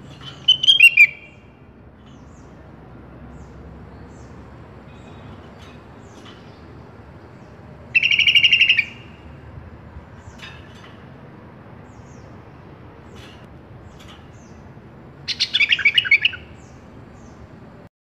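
Sooty-headed bulbul (kutilang) singing three short phrases of rapid, high notes, each about a second long: one near the start, one midway and one near the end. Between the phrases are faint chirps and a low steady hiss.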